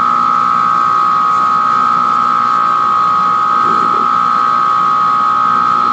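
Stained-glass grinder's motor running with a steady high whine.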